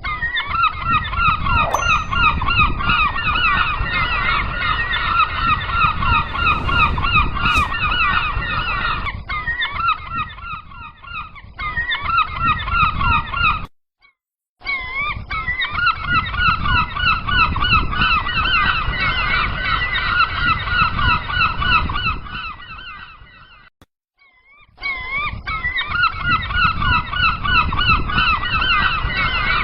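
A flock of gulls calling all at once, many harsh wavering calls overlapping in a continuous din over a low rumbling noise. The sound breaks off abruptly twice, briefly about halfway through and again after fading down about two-thirds of the way in, then resumes.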